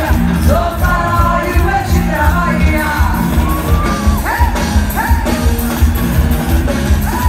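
Live carnival music from a trio elétrico sound truck's speaker stacks: a voice singing over a steady, heavy bass beat.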